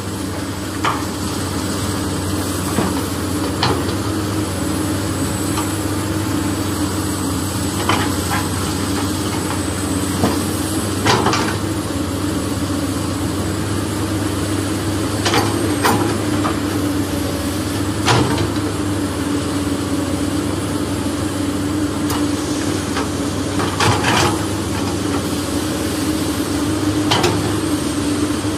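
A steady engine-like drone, with sharp clicks and knocks every few seconds from the hard plastic toy excavator bucket and toy dump truck bed.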